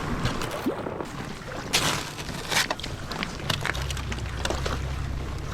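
Kayak paddle strokes dipping and splashing in calm icy water, a few sharp splashes standing out. A low wind rumble on the microphone comes in after about two-thirds of the way through.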